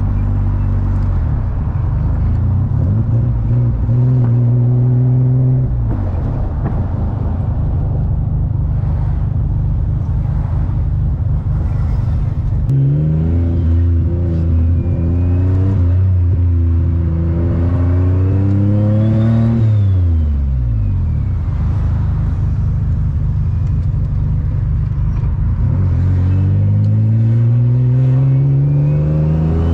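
Turbocharged Infiniti G35 coupe's VQ35DE V6 heard from inside the cabin, running steadily at first, then pulling up through the revs twice, about midway and again near the end, the pitch climbing and then dropping off. A thin high whine of the turbo spooling rises along with the revs.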